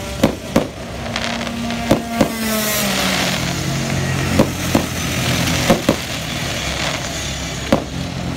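Aerial fireworks shells bursting in sharp bangs, about nine in all and mostly in pairs a fraction of a second apart. Underneath runs an engine's drone whose pitch falls for a couple of seconds.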